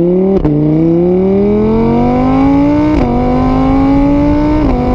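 An engine accelerating through the gears: a steady note climbs in pitch, drops back at a gear change about half a second in and again about three seconds in, then holds nearly level with a small dip near the end.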